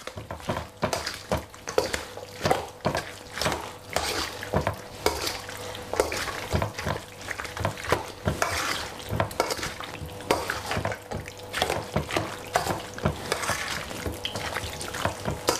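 A metal spoon stirring and tossing raw chicken pieces and chopped onion in a wet marinade in a stainless steel bowl: irregular clinks and scrapes of metal on metal with wet squelching, a few strokes a second.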